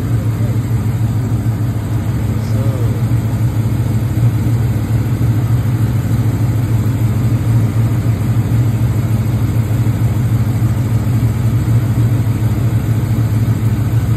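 Cammed 6.4-litre HEMI V8 of a Dodge Charger SRT8 running at a steady, deep drone, with no revving.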